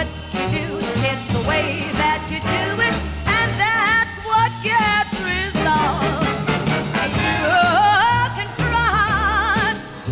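Swing-band song playing, a singer with band accompaniment over a steady beat.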